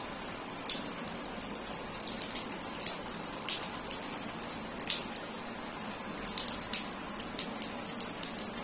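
Steady rain falling, with irregular drops splashing several times a second over the even hiss.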